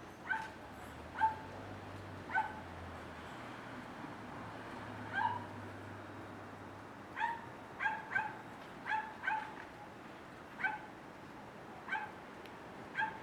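A small dog yipping, about a dozen short, high barks at irregular intervals, some coming in quick pairs.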